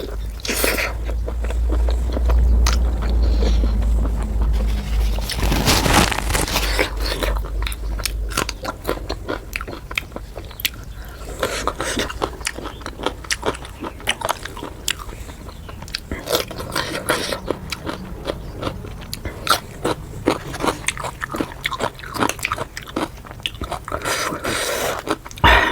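Close-miked eating: a person biting and chewing puri with chicken curry, with continual crisp crunches and wet smacking mouth sounds. A low rumble sits under the first several seconds.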